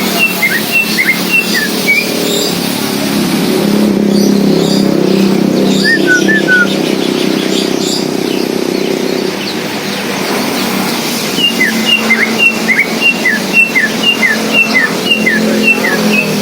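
Greater green leafbird (cucak ijo) singing: loud runs of short whistled chirps, about three a second, sparse in the middle and dense again in the second half, over a steady low hum.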